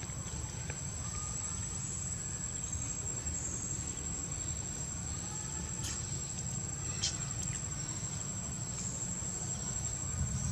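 Insects droning steadily with one high, unbroken tone, over a low rumble, with two faint clicks about six and seven seconds in.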